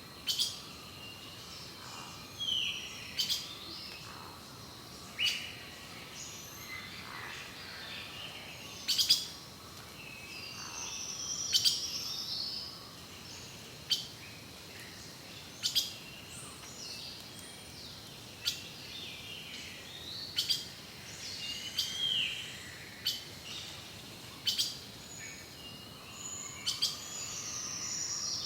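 Several forest songbirds calling and singing. Sharp short notes come every second or two among brief whistled phrases and gliding calls.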